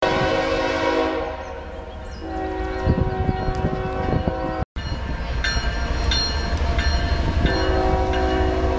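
Union Pacific diesel locomotive's multi-chime air horn blowing long blasts as the freight train approaches, over a steady low rumble. The horn sounds three times, about two seconds apart, with a short dropout in the sound partway through.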